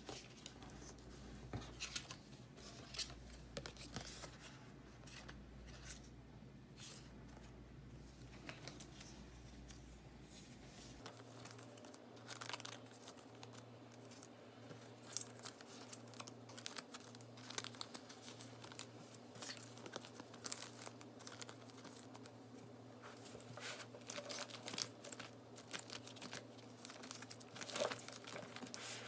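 Plastic photocard sleeves and binder pocket pages crinkling and rustling as cards are handled, with many small clicks and taps.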